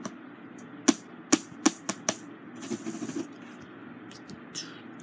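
Diamond-painting drill pen tapping resin drills onto the sticky canvas and picking them from the tray: sharp plastic clicks, five in quick succession starting about a second in, then a soft rustle and a few fainter ticks.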